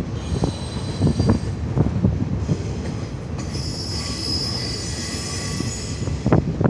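Freight train rolling past: a steady rumble with irregular clanks and knocks from the wheels and cars, and a high-pitched wheel squeal that sets in about halfway through and fades near the end.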